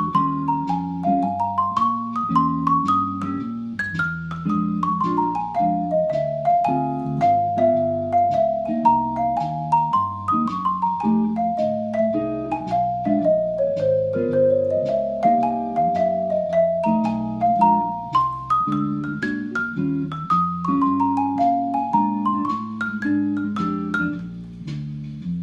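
Marimba played with four yarn mallets: quick melodic runs that climb and fall over low chords, rolled and struck, with no pause.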